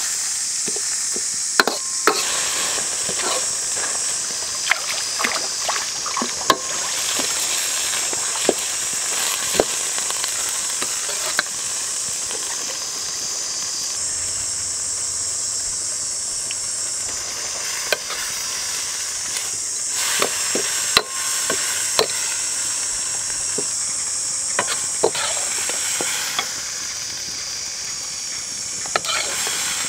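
Stir-fry of chicken liver, heart and morning glory sizzling steadily in a hot wok. A metal ladle scrapes and clanks against the wok at irregular intervals, with a few quieter seconds in the middle.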